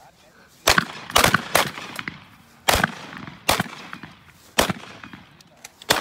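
Several shotguns fired at clay targets in a quick, uneven string: about seven shots over six seconds.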